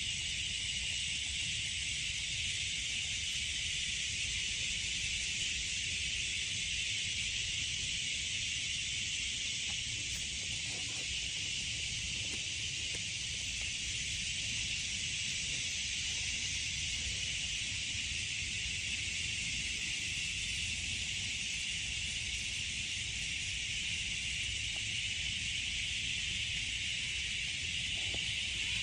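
Steady rain noise: an even hiss with a low rumble underneath.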